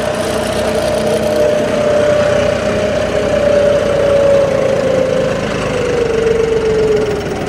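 Diesel tractor engine running steadily in a low working gear through a field, with a clear whine that slowly drops in pitch over the last few seconds.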